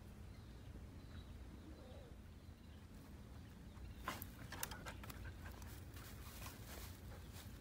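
Faint rustling and crackling of dry grass as a dog pushes through it, starting about four seconds in, over a low steady rumble.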